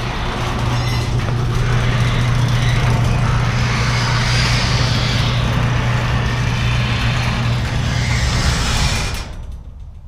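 Garage door opener running, a steady motor hum with the noise of the sectional door moving along its tracks; it stops about nine seconds in.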